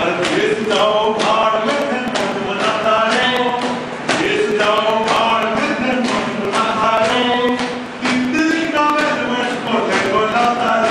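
A man singing a song in phrases, without instruments, over a steady beat of sharp taps keeping time.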